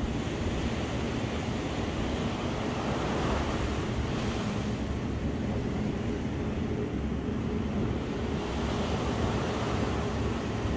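Ocean surf washing steadily onto the beach, with wind buffeting the microphone in a low rumble.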